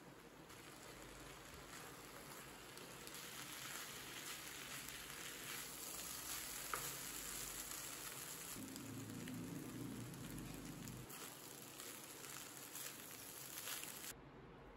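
Rice and vegetables sizzling in a hot non-stick pan while being stirred with a wooden spatula, with light scrapes and taps of the spatula. The sizzle cuts off suddenly near the end.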